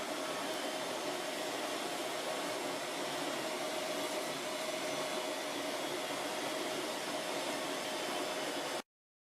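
1998 Carpigiani AES403/PSP/S three-head soft-serve freezer running: a steady mechanical rushing hum with a faint steady whine, cutting off abruptly near the end.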